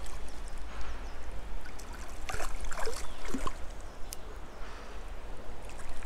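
River water splashing and gurgling as a hooked carp is played close in, with a few short sharp clicks.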